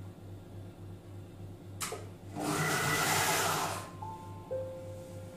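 Monsieur Cuisine Connect food processor mixing puréed orange with sugar and oil at speed 5: a click about two seconds in, then the motor and blade run loud for about a second and a half and stop, leaving a faint steady tone.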